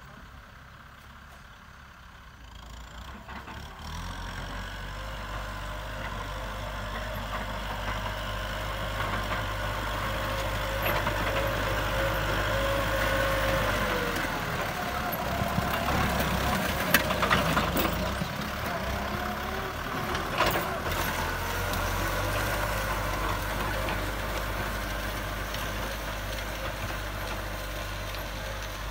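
Kubota M6040 tractor's four-cylinder diesel engine running steadily under load while disc ploughing, growing louder about four seconds in, with a few sharp clicks near the middle.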